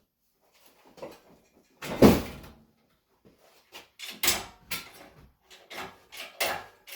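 A series of irregular knocks and clunks from work on an engine being freed for removal. The loudest is about two seconds in, followed by a quicker run of knocks in the second half.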